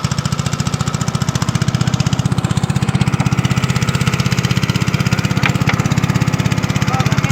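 A small engine running steadily at an even speed, with a fast, regular putter.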